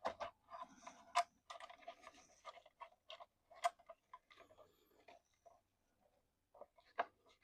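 Light plastic clicks and taps from handling and fitting the small plastic body and flatbed of an FMS FCX18 K10 RC truck, irregular and closely spaced for about five seconds, a short pause, then a few more clicks near the end.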